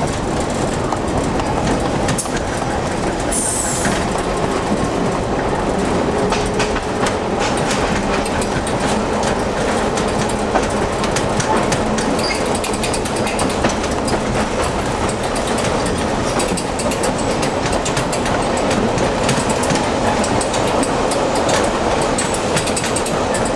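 Peter Witt streetcar running along the track, heard from the operator's cab: a steady rumble of wheels and running gear with rapid clicking over the rails, and a brief high, falling squeal about three seconds in.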